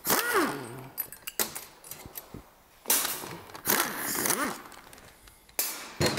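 Air ratchet run on engine bolts in about five short bursts, each a hiss of exhaust air with a motor whine that rises and falls, and light metal clinks between the bursts.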